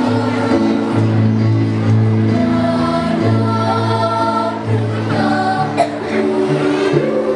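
Children's choir singing in unison and parts, backed by instrumental accompaniment that holds low bass notes changing about once a second.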